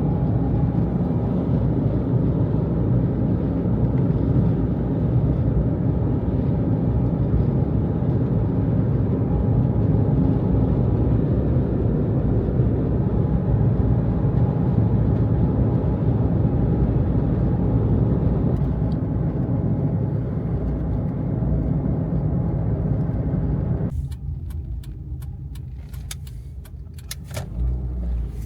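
Steady low rumble of road and engine noise from a moving car. About 24 s in the rumble falls away and a run of sharp clicks follows.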